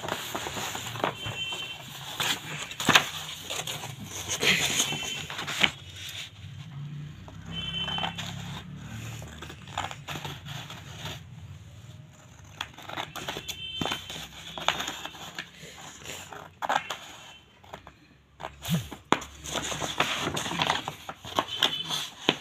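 Scissors cutting through a large sheet of stiff paper, with the paper crackling and rustling as it is handled: a string of short snips and rustles.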